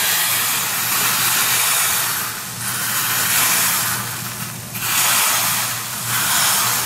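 Hot tempering oil with mustard seeds, cumin, garlic and dried red chillies poured into a plate of dal, sizzling loudly as it hits the liquid. The hiss comes in several waves that rise and fall as the pour goes on.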